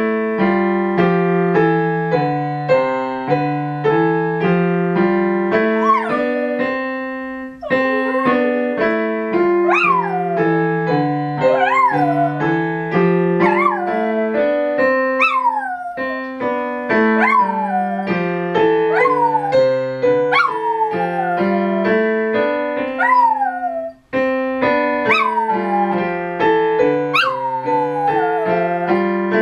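A digital piano playing a steady pattern of notes and chords, with a dog howling along to it. From about six seconds in, the dog gives short howls that swoop up and slide back down, about one every two seconds.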